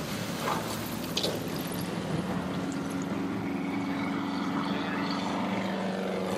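Piper Super Cub bush plane in flight, its engine and propeller droning steadily, with rushing air.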